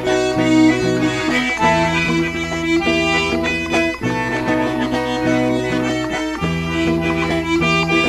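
Piano accordion (sanfona) playing an instrumental interlude of a gospel song: a held, reedy melody over a regular bass line.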